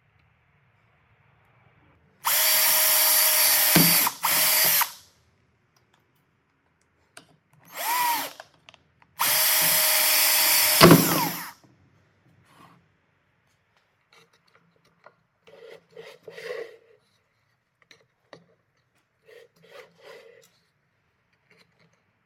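Electric drill running in two steady runs of about two and a half seconds each, with a short run in between, drilling holes through a plastic bucket. Faint handling clicks and rustles follow.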